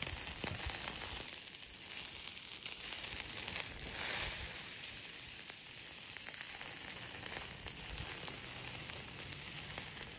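Beef sizzling on a charcoal grill: a steady hiss of fat and juices with small crackles and pops, swelling briefly about four seconds in.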